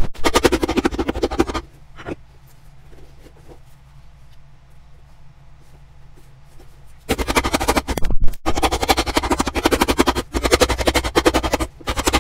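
Cobbler's hammer pounding a freshly cemented leather sole onto a boot on a last to set the glue: a fast run of blows, a lone knock, a pause of about five seconds, then another fast run of blows.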